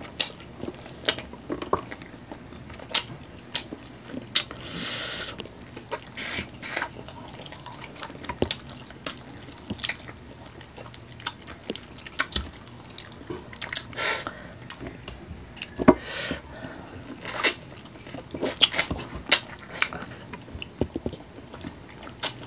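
Close-up mouth sounds of people eating saucy chicken feet adobo by hand: wet chewing, biting, lip smacking and finger sucking, heard as irregular sticky clicks and smacks.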